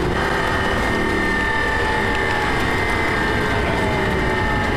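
Lamborghini Gallardo LP560-4's V10 engine running at fairly steady revs, heard from inside the cabin over road noise; its note drops slightly near the end.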